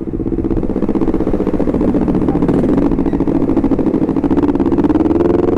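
Honda CBR250RR's parallel-twin engine running while the motorcycle is ridden along the road, a steady engine note that rises slightly in pitch near the end.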